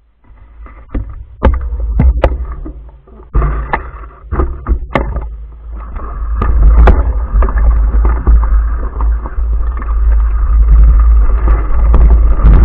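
Off-road vehicle riding over rough ground: a heavy low rumble of wind buffeting on the microphone, with sharp knocks and rattles from bumps in the first few seconds, getting louder and steadier from about halfway through.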